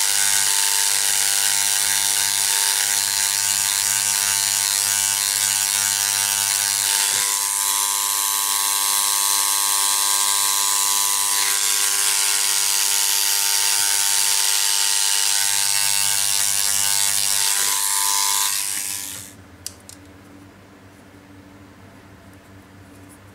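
Powered hammer handpiece running steadily, rapidly tapping to spread the head of a small silver rivet against a steel stake. It cuts off about 19 seconds in, followed by a couple of faint clicks.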